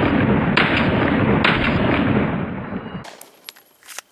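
Pistol shots about a second apart, each loud report running into the next, dying away about three seconds in. A couple of faint clicks follow near the end.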